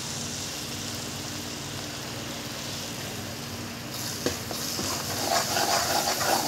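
Tomato-onion masala sizzling in a metal kadhai. About four seconds in, a spoon starts stirring and scraping through it, and the sizzle grows louder as the ground spices are fried in.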